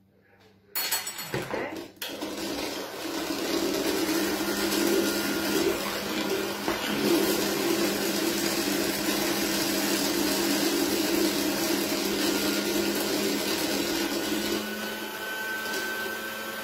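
Electric hand mixer switching on about a second in, then running steadily with its beaters whisking egg-yolk batter in a bowl. It eases a little near the end.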